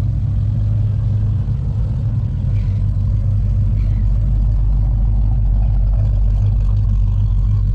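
A car engine idling with a deep, steady rumble.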